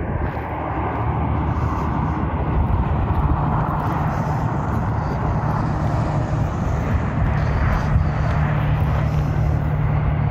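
Steady rumble of traffic on the highway below, with wind on the microphone.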